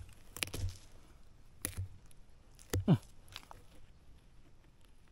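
A few short scrapes and thuds of a hand tool digging and chopping into packed soil and tree roots. The strokes are irregular, with the loudest a little before and around three seconds in, and a brief falling sound comes with that last stroke.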